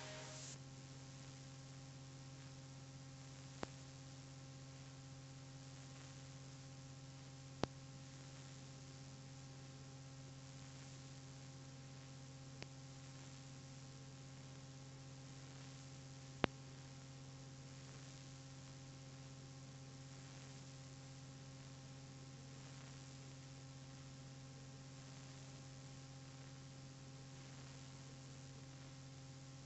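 Faint steady electrical hum, a low tone with several higher steady tones above it, broken by four sharp clicks in the first half, the last the loudest.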